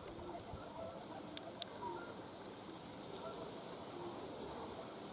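Faint outdoor ambience with distant birds chirping here and there, and two sharp little clicks in quick succession about a second and a half in.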